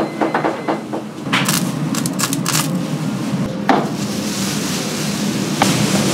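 Kitchen clatter of earthenware pots and metal utensils: a quick run of clinks and knocks about a second in, then a couple of single knocks, over a steady low hum.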